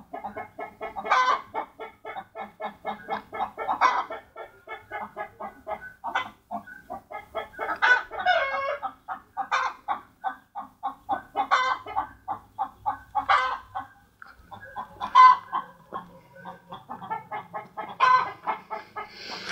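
Chickens clucking in a quick run of short notes, with a louder, longer call every couple of seconds.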